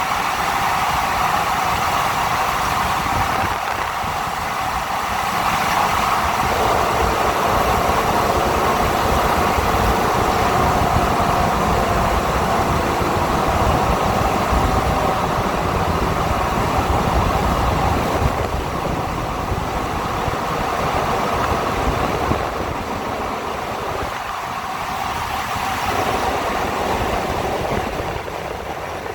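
2018 Ford F-150's 5.0 V8 engine running steadily after a cold start, its sound swelling about six seconds in and easing off later.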